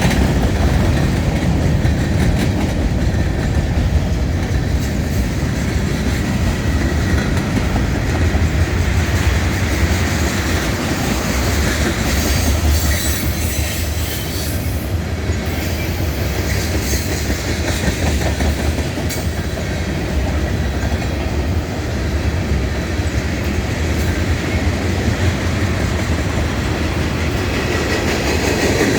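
CSX freight train rolling past, its wheels running steadily and loudly on the rails.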